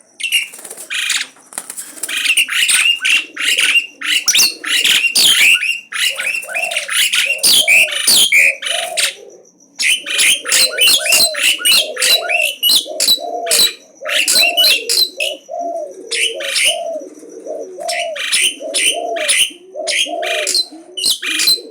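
Javan pied starling singing nonstop: a loud, fast stream of harsh, squeaky chattering notes with a few short breaks. From about six seconds in, a lower call repeats steadily underneath.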